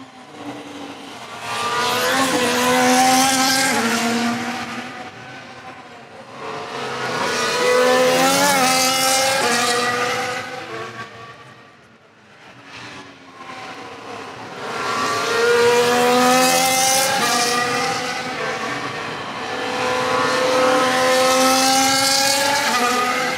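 2022 Formula 1 cars' 1.6-litre V6 turbo-hybrid engines passing on a wet track, the engine note swelling and fading four times. Tyre spray adds a hiss.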